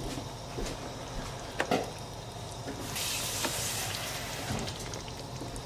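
Pot of rice and peas simmering on the stove with a low, steady sizzle, a couple of light knocks about a second and a half in, and about a second of louder hissing around three seconds in.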